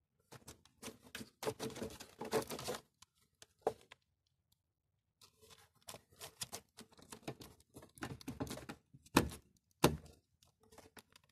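Hand-handling noise at the back of a Toyota Yaris headlamp during an H4 bulb change: rubber dust cover, wiring plug and bulb fittings rustling and clicking. The noise comes in two bursts of quick clicks and rustles, with two sharper knocks near the end.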